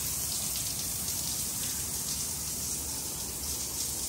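Shower running: a steady hiss of water spraying from a wall-mounted showerhead.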